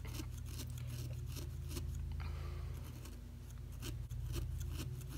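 Felting needle stabbing repeatedly into a wool bead held on a rice-filled burlap felting pad: a quick, irregular series of small pokes and clicks, several a second.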